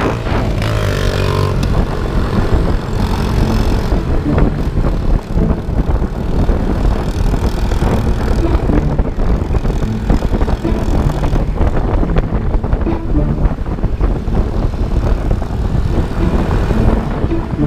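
Small motorcycle engine running steadily while riding, with wind rushing loudly over the helmet-camera microphone.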